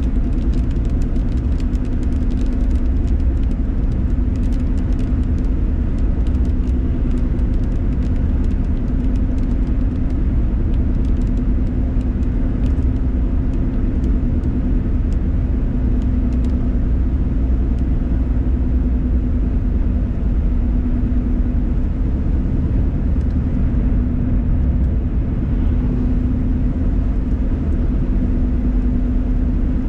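Steady road noise inside a moving car's cabin: a low rumble of engine and tyres on wet pavement with a constant drone. Scattered light ticks of raindrops on the windshield, mostly in the first half.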